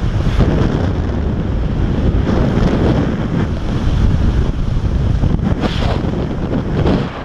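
Wind buffeting the camera microphone in the rushing air of a tandem parachute descent under an open canopy.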